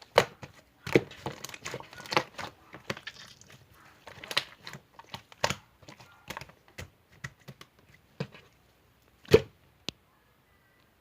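Slime being squeezed and poked by hand, giving irregular crackling clicks and pops, the loudest about nine seconds in. The sounds stop about a second before the end.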